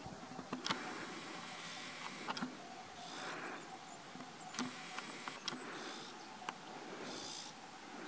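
Outdoor background hiss with faint, short, high-pitched animal calls repeating every second or two, and a few sharp clicks scattered through it.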